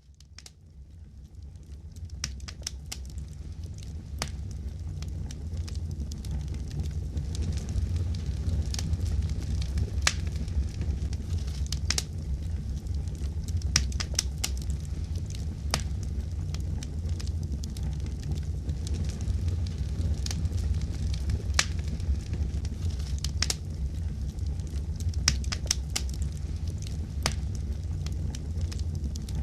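Fireplace fire crackling: a steady low rumble with sharp, irregular pops and snaps scattered through it, fading in over the first couple of seconds.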